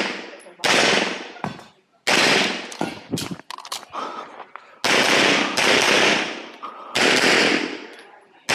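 Semi-automatic pistol fired about six times at irregular intervals, some singly and some in quick pairs, each shot sharp with a long echoing tail.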